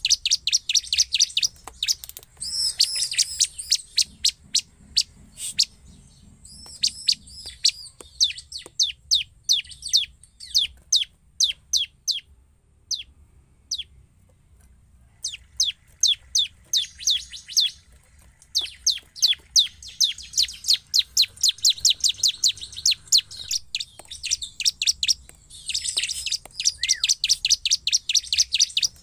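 Bar-winged prinia (ciblek) singing: runs of sharp, quickly repeated high chirps that speed into fast trills, thinning to a few single notes around the middle before the rapid runs start again.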